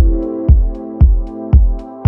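Electronic background music with a steady kick drum, about two beats a second, under held synth chords.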